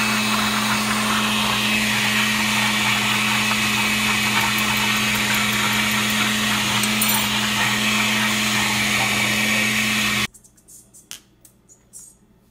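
Countertop blender with a glass jar running steadily at one speed, blending fruit and leafy greens into a green juice, then switching off suddenly about ten seconds in. A few faint knocks follow.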